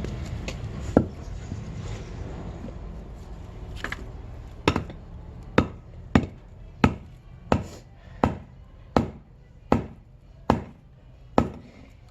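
Axe chopping into wood in a quick, even rhythm: about ten sharp chops, a little more than one a second, starting about halfway through after a single earlier strike. A low rumble fades out over the first few seconds.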